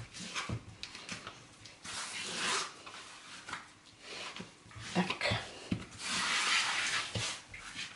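Hands kneading and pressing shortcrust dough on a silicone pastry mat: soft rubbing, with a few light knocks about five seconds in and a longer stretch of rubbing just after.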